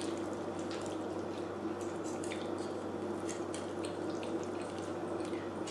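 Close-miked chewing of creamy pasta alfredo: scattered soft, wet mouth clicks over a steady low hum.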